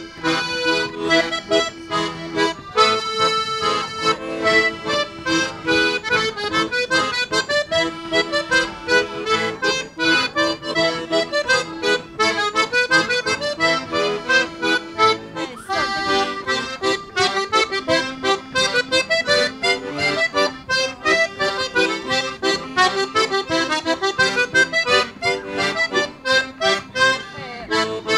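Accordion ensemble playing a tune together: held melody notes over a steady rhythmic accompaniment, with a new phrase starting about halfway through.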